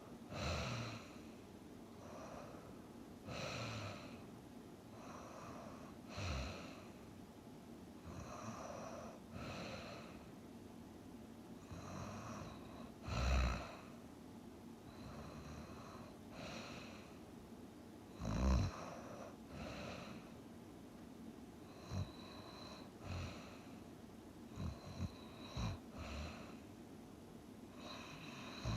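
Steady snoring in sleep, a snore with each breath about every two to three seconds. Two louder, deeper snores come near the middle, and a run of short, sharp snorts comes in the last few seconds.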